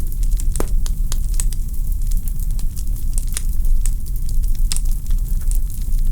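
Wood fire burning in a fireplace: a steady low rumble of flames with irregular sharp crackles and pops from the logs, one louder pop about half a second in.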